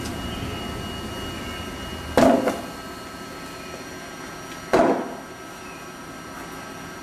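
Squid and meat scoring machine running with a steady hum from its blade rollers and conveyor, broken by two loud clacks about two and a half seconds apart. The low rumble drops away at the first clack.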